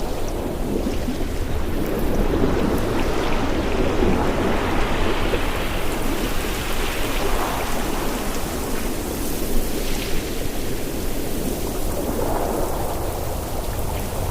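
Ocean surf and wind: a steady rushing wash with a deep rumble beneath it, swelling a little a few seconds in.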